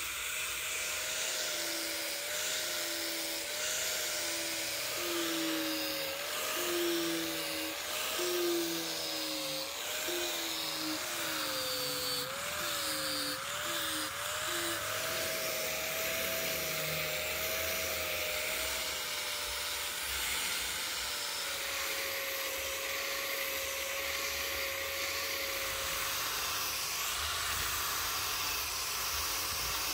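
Electric angle grinder with a sanding pad running against a rosewood axe handle: a steady motor whine that wavers up and down in pitch through the first half, then holds steady, over the hiss of the abrasive on the wood.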